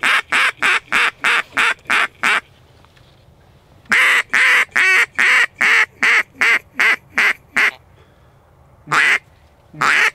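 Duck call blown in runs of quacks: a quick string of about nine, then from about four seconds in a louder run of about a dozen that opens with one longer note, then two single quacks near the end.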